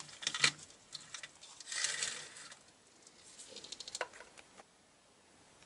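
Small plastic pearl beads clicking and rattling as a toy car is pushed through them: scattered light clicks, a short rustling rattle about two seconds in, and a few more clicks around four seconds in.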